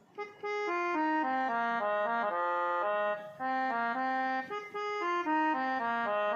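Casio SA-80 electronic keyboard playing a melody on its harmonium tone: a quick line of reedy, held notes stepping up and down, starting just after the beginning, with two short breaks around the middle.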